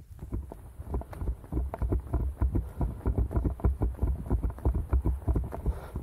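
A runner's footsteps: a quick, uneven run of thuds several times a second as the feet strike the ground.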